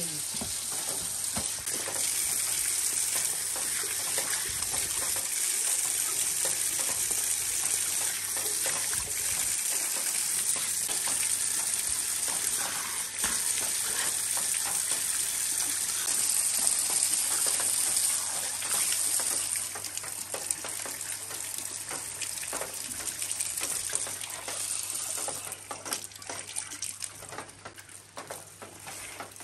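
Water running from an outdoor tap into a concrete basin, splashing as a man washes his face and hands under the stream. A steady hiss that turns quieter and more uneven in the last third.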